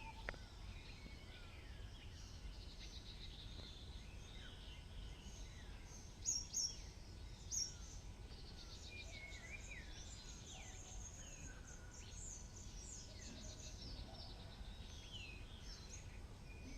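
Several birds singing and calling at once in a morning chorus: chirps, trills and short downward-sweeping whistles. A few louder sharp chirps stand out about six to eight seconds in, over a faint low background rumble.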